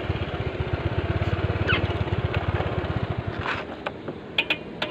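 Small motor scooter engine idling with an even putter that fades away about three seconds in, followed by a few light clicks near the end.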